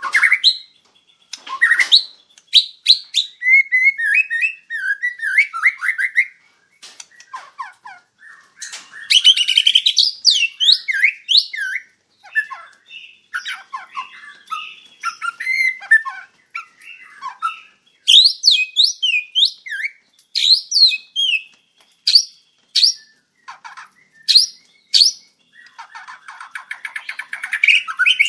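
White-rumped shama singing vigorously: a varied run of clear whistled notes, quick rising sweeps and fast rattling trills, in phrases broken by short pauses.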